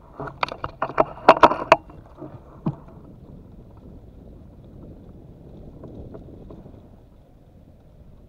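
A shot wild duck flapping and splashing in shallow water: a rapid run of slaps and splashes lasting nearly two seconds, with one more slap about a second later, then only faint wind.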